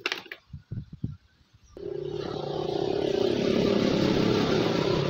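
A few clicks and knocks of wires being handled, then a motor vehicle's engine that comes in, swells to its loudest about four seconds in, and begins to fade near the end as it passes.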